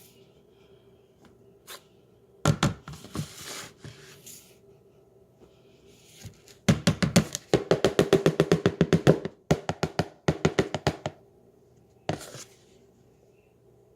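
Hands knocking and tapping on a container while tapioca starch powder is packed down: a few knocks, then a long run of quick taps at about eight a second with one short break, and a single knock near the end.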